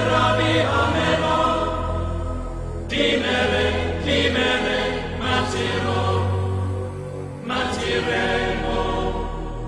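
Background music in a choral chant style: sustained sung phrases over a steady low drone, with new phrases entering every second or two.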